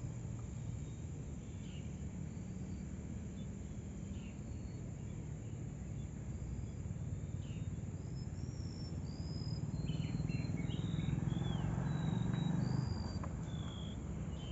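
Birds chirping outdoors, short whistled calls that come more often from about halfway through, over a steady low rumble that swells for a few seconds near the end.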